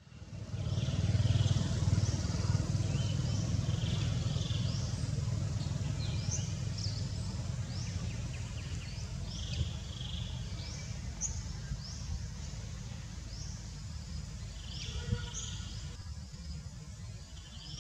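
Outdoor ambience: a steady low rumble, loudest in the first few seconds, with many short, quickly rising high-pitched chirps repeating about once a second.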